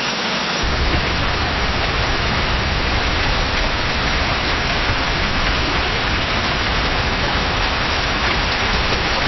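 Steady heavy rain falling in a forest, a dense even hiss. About half a second in it cuts to another rain recording that carries a deeper rumbling undertone.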